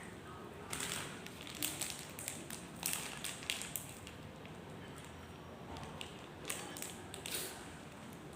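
Scattered small crackles and taps, a cluster starting about a second in and another a few seconds later, over a faint steady background.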